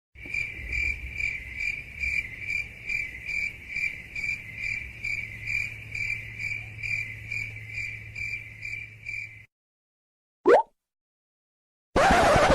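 Crickets chirping in a steady, even rhythm of about two to three chirps a second, over a faint low hum; they stop about nine and a half seconds in. A second later comes a short, loud rising swoop, and a burst of noise starts near the end.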